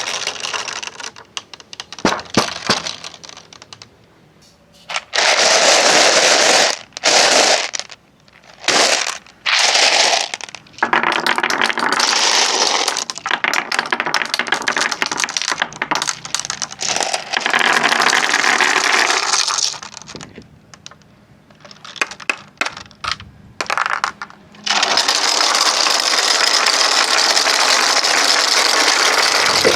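Marbles rolling and clattering along a wooden marble-run track: long stretches of dense rolling noise broken by bursts of sharp clicks and short quieter gaps, with a long unbroken run of rolling near the end.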